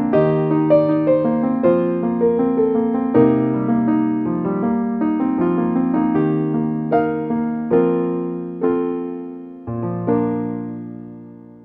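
Slow solo piano background music, single notes and chords struck one after another, ending on a final chord that dies away near the end.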